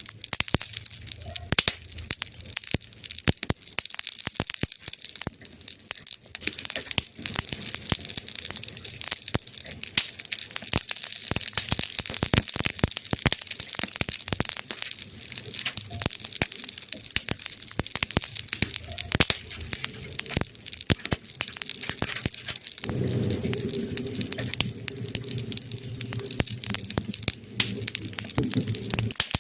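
Campfire burning, wood crackling with many sharp irregular pops over a steady hiss; a low rumble joins in for the last few seconds.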